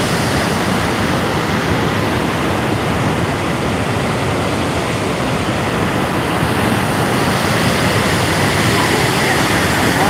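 Purwa waterfall in heavy flow: a loud, steady rush of falling water with no breaks.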